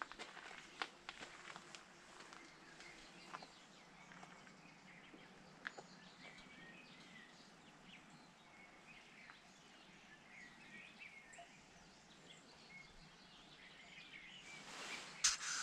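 Quiet outdoor ambience with faint bird chirps and occasional light clicks. Near the end a louder rush of noise swells up briefly.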